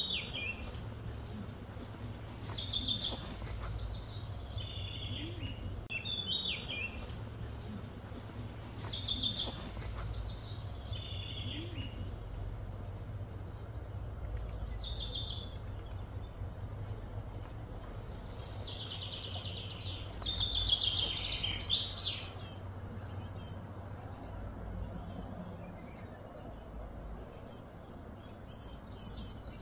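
Birds singing and calling in repeated short high phrases, with a louder run of calls about two-thirds of the way through, over a steady low hum of ambient noise.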